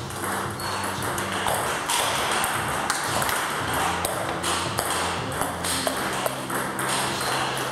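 Table tennis rally: the ball ticks sharply and repeatedly off the paddles and the table.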